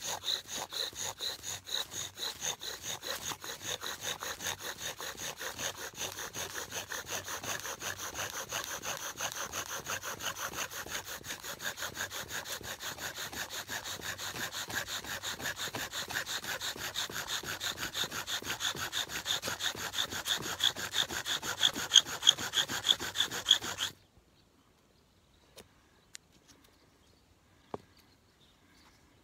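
Bow drill in use: the wooden spindle is driven back and forth against the hearth board in rapid, even strokes, a squeaky rubbing whir of wood on wood. It grows louder over the last few seconds and stops suddenly about 24 seconds in.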